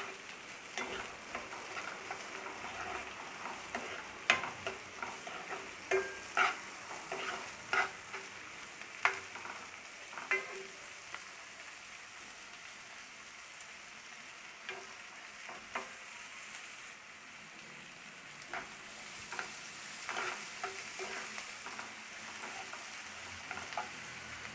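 Chopped onion and green capsicum frying in oil and butter in a non-stick kadai, with a steady sizzle. A steel spoon stirs them, scraping and clinking against the pan in short clicks, most often in the first half.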